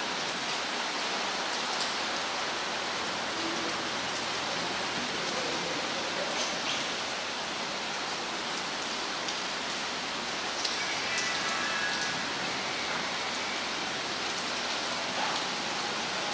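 Steady, even hiss of background noise, unchanging throughout, with a few faint brief sounds in it.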